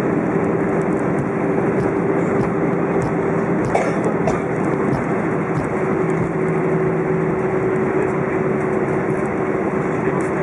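Airbus A319 jet engine and airflow noise heard inside the cabin: a steady rush with a droning hum, and a few faint rattles around four seconds in.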